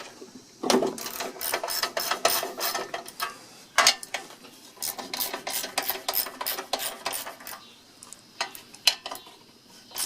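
Hand tools and metal parts being worked on a push lawn mower's engine: runs of rapid clicking and scraping, with a sharp knock about four seconds in and another near the end.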